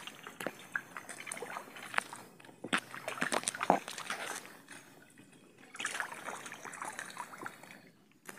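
Water splashing and sloshing close by in irregular bursts as a wading angler brings in a hooked fish, easing off for a moment about five seconds in and again near the end.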